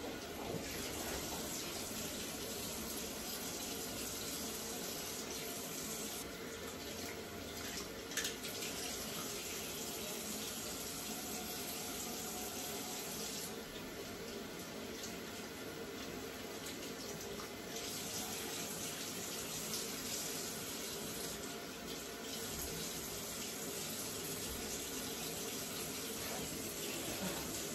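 Tap water running steadily into a bathroom sink as hair bundles are washed under it, with a brief knock about eight seconds in.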